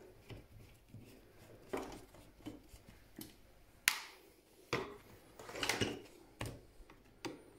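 Sheet-metal casing of a Dell computer power supply being handled and turned over on a table: scattered knocks and clicks, the sharpest about four seconds in, with a cluster of rattling knocks between about five and six seconds.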